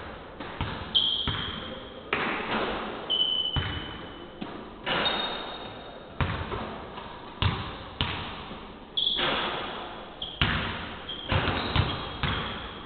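Basketballs bouncing on a hardwood court, irregular sharp thuds from several players dribbling, echoing through the hall, with a few short high squeaks of shoes on the floor.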